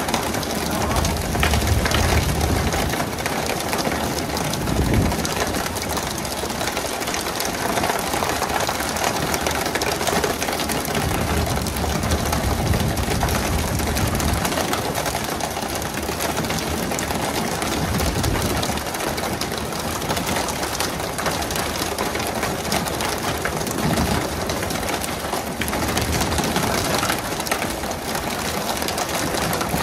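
Tuna fishing boat's engine running steadily under a constant hiss of water spray and splashing, with low rumbles that swell now and then.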